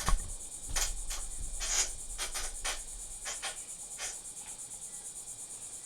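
Crickets chirping steadily in the background, with a few short clicks scattered through the first few seconds.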